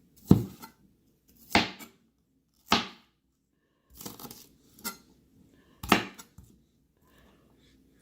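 Santoku kitchen knife chopping through food onto a cutting board: about seven separate cuts, roughly a second apart.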